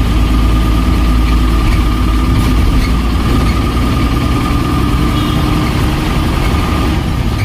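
A bus engine running as the bus drives, heard from inside the cab, a steady low rumble with a thin steady whine above it.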